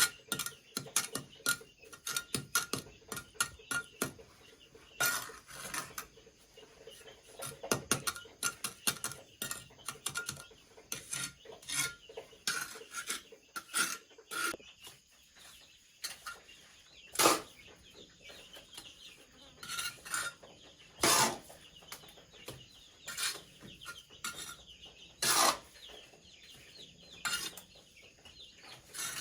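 Irregular taps and knocks of hand work on hard material such as bamboo or wood, with three louder strikes in the second half, while chickens cluck.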